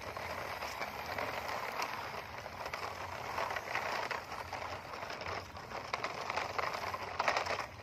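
Plastic wheels of toy dump trucks rolling over concrete and loose gravel, a continuous gritty crackle with scattered small clicks.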